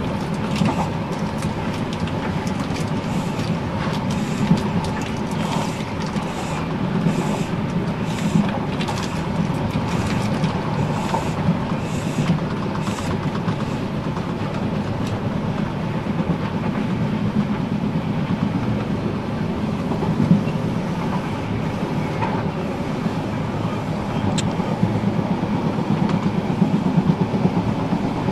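Caledonian Sleeper train running along the track, heard from inside the train: a steady rumble of wheels on rail, with scattered clicks during roughly the first half.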